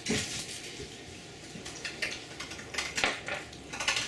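Hand-cranked meat grinder grinding raw gar fish: irregular metal clicks and clanks from the turning crank and housing, the loudest about three seconds in and near the end.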